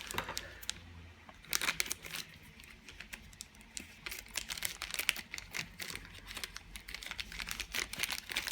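Shipping packaging being unwrapped and handled by hand: irregular crinkling with scattered sharp crackles and clicks.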